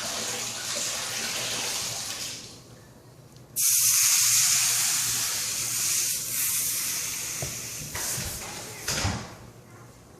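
Freshly soldered copper pipe and fitting sizzling as a wet rag cools the hot joint: a softer hiss at first, then about three and a half seconds in a sudden loud steam hiss that slowly fades. A brief soft knock comes near the end.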